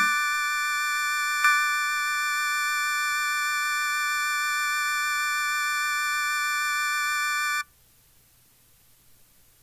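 Electroacoustic tape music: a high, steady chord of many electronic tones, with a brief accent about a second and a half in. It cuts off suddenly about seven and a half seconds in, leaving only a faint hiss and low hum.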